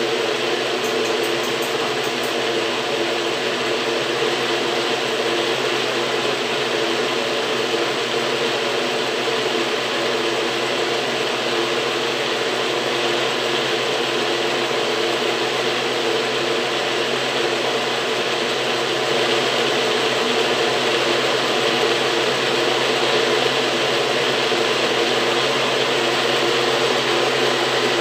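NutriBullet personal blender running steadily, its motor spinning the blade through a thick mix of fruit and water as it purees it into a shake. It gets a little louder about two-thirds of the way in.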